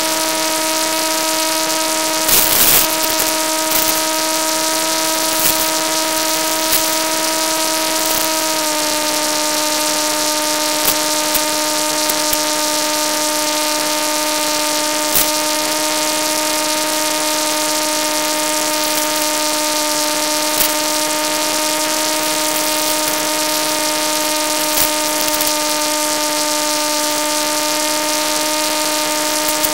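Steady electric whine of the Bixler's brushless pusher motor over a constant rushing hiss, its pitch dropping a little about eight seconds in, with scattered faint crackles.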